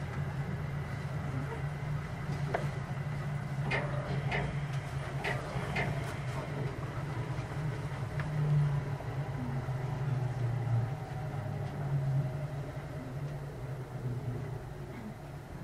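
Interior running sound of a Kintetsu 9020 series electric train with Mitsubishi motor control, travelling between stations: a steady low rumble from wheels and motors, with a few sharp clicks a few seconds in and a faint tone slowly falling in pitch in the second half.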